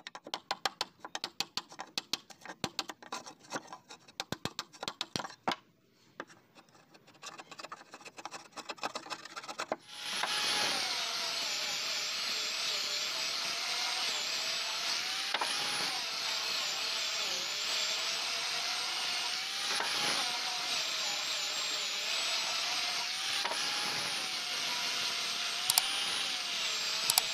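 Hand saw cutting a tenon in wood with quick, rasping strokes that grow quieter after about six seconds. About ten seconds in, an electric disc sander starts running steadily on a wooden board, its motor whine wavering slightly as pressure on the work changes.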